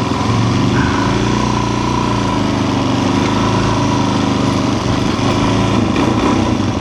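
Suzuki DR-Z400's single-cylinder four-stroke engine running at a steady pitch.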